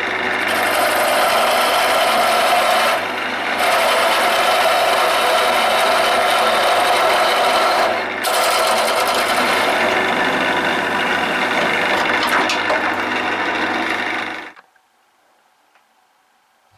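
Wood lathe running with a parting tool cutting into the spinning wooden leg: a loud, continuous cutting hiss over a steady hum, broken briefly twice. It cuts off abruptly about two seconds before the end.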